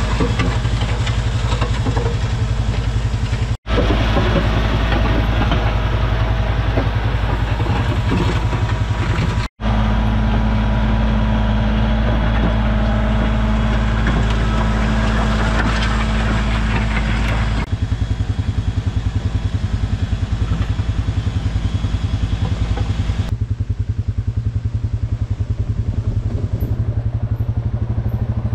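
Compact tractor engine running steadily under load while pulling a back blade grading a gravel road, broken by two brief gaps. The sound turns thinner, with a pulsing low throb, about two-thirds of the way in.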